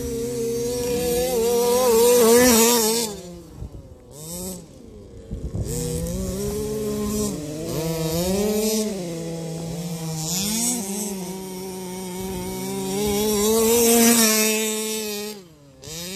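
1/5-scale RC cars' 30.5cc two-stroke petrol engines racing, their pitch rising and falling with the throttle. They are loudest twice, about two seconds in and again near the end, and fall away sharply when the throttle is let off.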